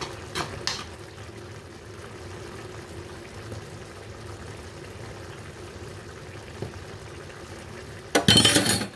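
Pots of beef goulash and vegetable rice simmering steadily on the stove, with two light clicks about half a second in. Near the end comes a loud, brief rush of noise lasting under a second.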